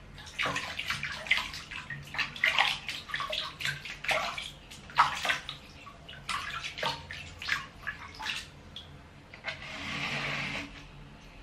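Water splashing and sloshing in a plastic basin as a wet baby monkey is dunked and scrubbed by hand, in irregular splashes. About ten seconds in, a longer spell of water streams back into the basin as the monkey is lifted out.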